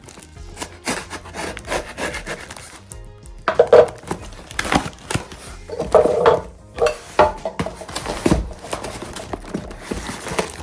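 A knife cutting and scraping at the seal stickers on a product box, heard as irregular scraping, rubbing and clicking, loudest about four and six seconds in.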